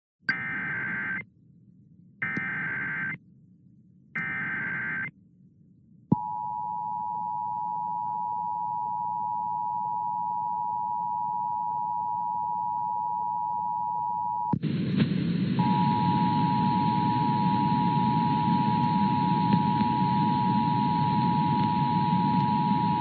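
Emergency Alert System header: three short bursts of SAME digital data tones about two seconds apart, then the steady two-tone attention signal from about six seconds in. Partway through, a static hiss comes in under the tones, which drop out for about a second and then carry on.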